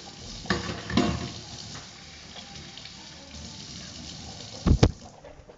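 Kitchen tap running into a stainless steel sink, the water splashing as it is caught in cupped hands. Near the end come two sharp, loud knocks or splashes in quick succession.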